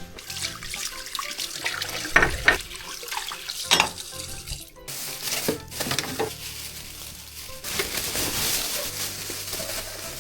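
Tap water running into a sink, with a few light knocks. It stops briefly near the middle, then runs again more strongly. Soft background music underneath.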